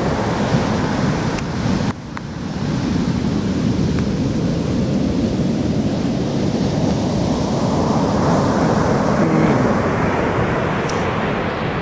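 Ocean surf breaking, with wind rumbling on the microphone. The roar dips briefly about two seconds in, then swells steadily as a wave rushes in.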